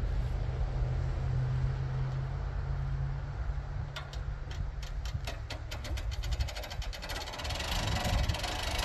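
An engine running with a steady low hum; about four seconds in a quickening run of sharp clicks begins, and the hum drops away near the end as a rougher, brighter noise takes over.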